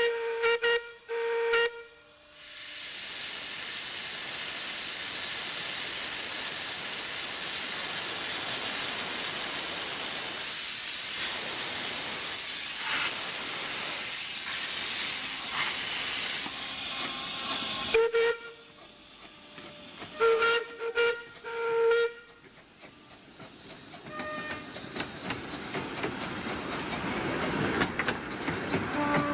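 The whistle of the Romney, Hythe and Dymchurch Railway's 15-inch-gauge 4-6-2 steam locomotive Southern Maid gives a few short toots, then steam hisses steadily for about fifteen seconds. A few more short whistle toots follow, and the noise rises near the end as the train moves off.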